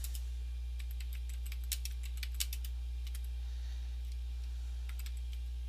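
Typing on a computer keyboard: an uneven run of separate key clicks, some bunched close together, over a steady low hum.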